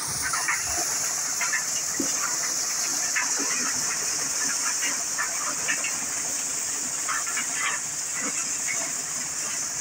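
Engine-driven maize thresher running and shelling cobs: a steady high hiss from the machine with irregular short crackling bursts as cobs are fed in and beaten.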